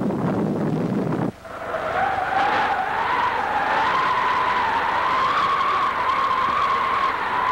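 Cartoon sound effects: a loud rumbling noise that cuts off abruptly about a second and a half in, followed by a wavering, whistling whoosh with a hiss, the sound of a caped hero flying through the air.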